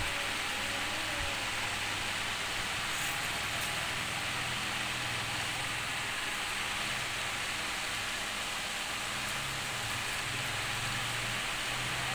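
Steady background hiss with a faint low hum coming and going.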